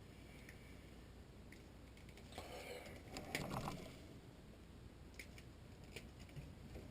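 Faint handling noise from working on furnace control-board wiring: a short rustle and scrape about two and a half seconds in, then a few light clicks.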